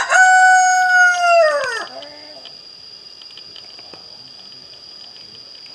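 Rooster crowing: the long drawn-out last note of its crow, held level and then falling away in pitch, ending about two seconds in. A steady high-pitched tone runs underneath.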